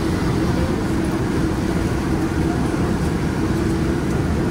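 PCC streetcar running along the track, heard from inside the car: a steady low rumble of wheels and running gear with a steady hum.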